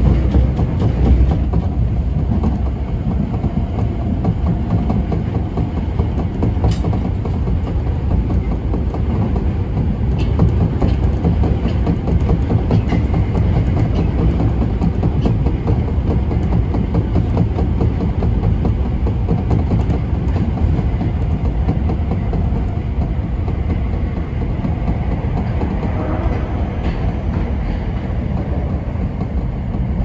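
Osaka Metro 22 series subway train running through a tunnel, heard from behind the cab: a loud, steady rumble of wheels on rail. It grows a little quieter over the last few seconds as the train comes into a station.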